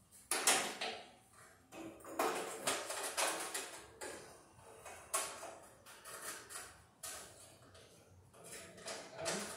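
Hand tools clinking, scraping and rattling against the sheet metal of a 1970s Wheel Horse garden tractor as parts are worked loose, in irregular clanks a couple of seconds apart.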